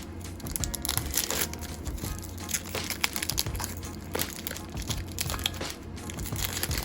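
Foil wrapper of a Pokémon Sword & Shield booster pack being crinkled and torn open: a dense run of irregular crackles.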